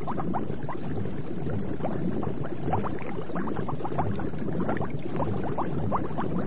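Bubbling underwater: a stream of small bubbles, heard as many short rising blips, over a steady low rush of water.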